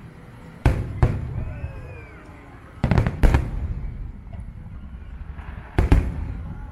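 Aerial fireworks shells bursting with sharp, echoing bangs: two about a second in, a quick cluster of three around three seconds, and two more near the end.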